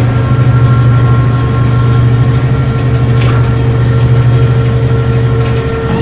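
A steady, loud low machine hum with several steady higher tones over it, and a brief higher blip about three seconds in.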